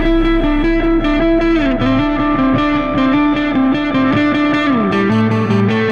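Background music: a distorted electric guitar plays a repeated riff, with notes sliding down in pitch about two seconds in and again near the five-second mark.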